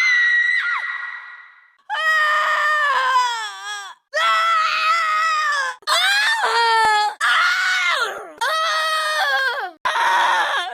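A woman's screams as a string of separate sound-effect clips: about seven high-pitched screams, each a second or two long and cut off abruptly before the next. The first rises in pitch and fades away with an echo.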